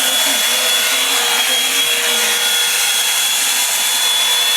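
Hand-held hair dryer running steadily: a loud, even rush of air with a thin high whine from its motor.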